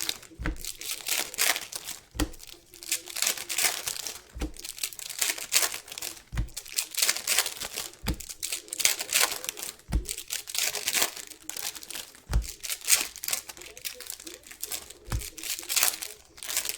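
Plastic wrapping crinkling and rustling as it is handled close to the microphone, in irregular bursts, with a soft low thump about every two seconds.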